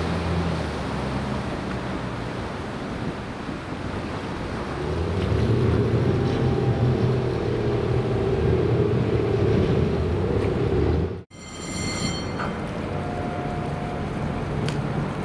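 Engine of the Wakato ferry boat Dai-18 Wakato Maru running, with water rushing past the hull. About five seconds in the engine grows louder and heavier; near the end the sound drops out abruptly for an instant, a short high tone follows, and the engine hum carries on.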